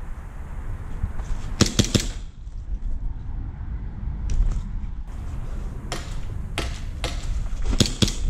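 Airsoft guns firing: a quick string of three or four shots about a second and a half in, single shots spaced through the middle, and another quick string near the end, over a steady low rumble.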